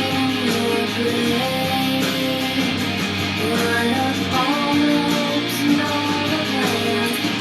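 Alternative rock recording playing, led by guitars, at a steady level.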